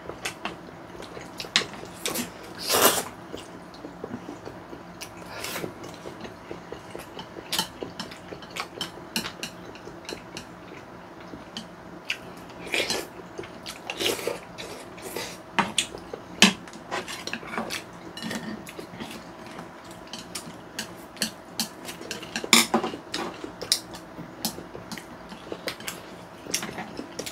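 Chopsticks and a spoon clinking and scraping against ceramic plates and bowls during a meal: irregular sharp clicks, a few louder knocks among them, over a faint steady hum.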